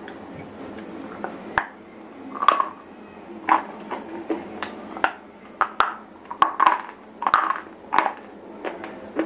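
Pieces of white shele stone being snapped and crumbled between the fingers right at the microphone. It is an irregular run of about fifteen sharp cracks and short dry crunches.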